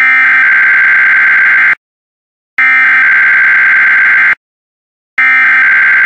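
Emergency Alert System SAME header tones: three loud bursts of shrill digital data, each a little under two seconds long with short pauses between, the last beginning about five seconds in. These bursts encode the alert's event and area codes and mark the start of an EAS message.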